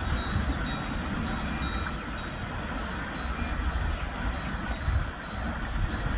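Bull-driven Persian wheel (rehat) turning. Its bucket chain and gearing give a low, uneven rumble with irregular knocks, over faint splashing of water pouring from the buckets and a few short, faint high squeaks.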